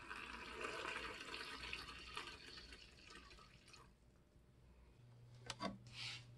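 Water being poured into a small water dish, a faint steady trickle that stops about four seconds in. Two short taps near the end.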